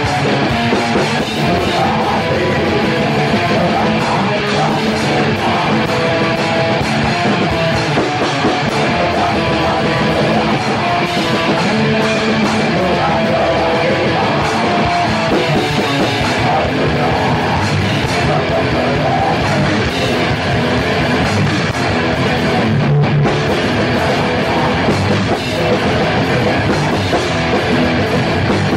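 Black metal played on an acoustic drum kit with cymbals, together with guitars from a recorded track, running without a break.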